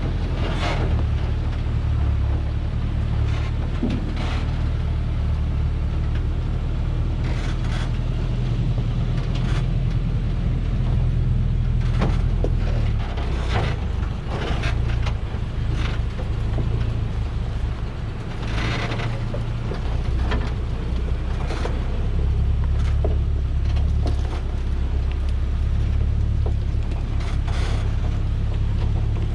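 Diesel engine of a Dongfeng log truck running steadily at low speed under a heavy load of acacia logs, a low drone that eases off for a few seconds around the middle. Scattered knocks and rattles from the truck and its load as it moves over a rough, rocky track.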